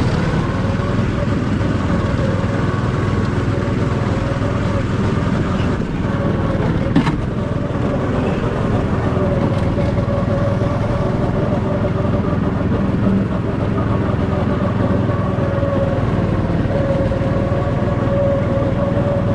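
Go-kart's small engine running steadily at an even pitch, heard from the driver's seat. A single sharp knock about seven seconds in.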